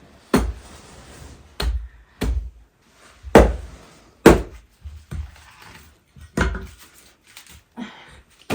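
A series of heavy chopping blows, about one a second and unevenly spaced, each a sharp thud with a short ring after it.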